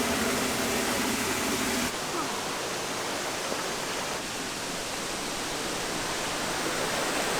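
Waterfall rushing, a steady hiss of falling water, a little quieter after a shift about two seconds in.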